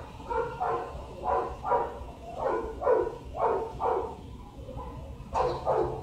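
Pit bull giving a run of short vocal calls, each falling in pitch, about two a second, then a pause and two more near the end. He is eager for a treat held to his nose.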